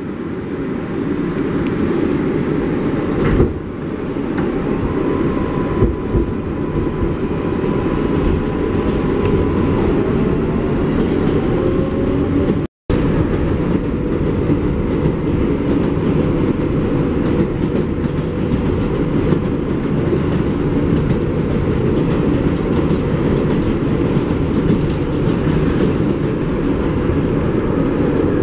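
An R188 subway car running at speed, heard from inside: a steady rumble of wheels on rail with a clickety-clack and a few knocks, and a faint whine that rises briefly near the middle. The sound cuts out for an instant just before halfway.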